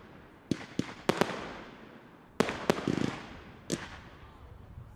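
Professional display fireworks: aerial shells bursting in the sky with sharp bangs at uneven intervals, about eight in all, each fading out with a rolling echo, including a quick flurry of pops a little under halfway through.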